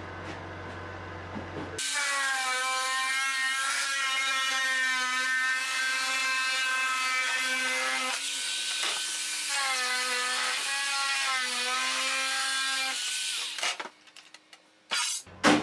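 Bosch electric metal shear cutting through thin aluminum sheet. It starts about two seconds in with a high, shifting whine, eases briefly about eight seconds in, and stops at around thirteen seconds. A couple of sharp metal knocks come from the cut sheet being handled near the end.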